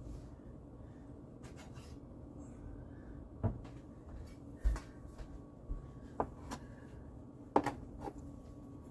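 Scattered light knocks and clicks from kitchen work on a counter, about six over several seconds, with quiet between them.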